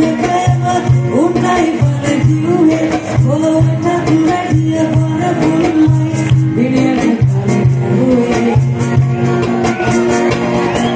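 Live band playing a song with a lead singer: drums, bass guitar and other instruments under the vocal, with a steady bass beat.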